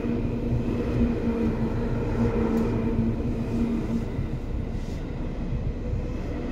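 Seibu 2000 series electric train running on the rails, heard from on board: steady rumble of wheels and running gear with a humming tone from the traction motors that fades about four seconds in.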